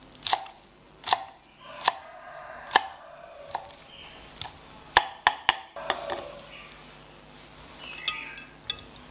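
Kitchen knife chopping rau răm (Vietnamese coriander) leaves on a thick round wooden chopping board: sharp chops about once a second, then a quick run of several chops about five seconds in.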